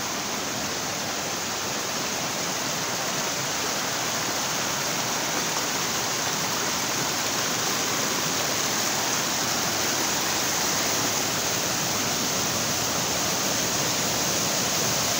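Spring-fed mountain stream rushing and splashing over rocks in a steady, even rush that grows slightly louder. The stream is running high and fast with rainy-season water.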